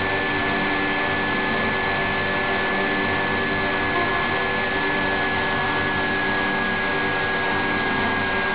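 Spinning rotor of a home-built generator rig running steadily, a dense mechanical whir with a thin high whine held almost level over it.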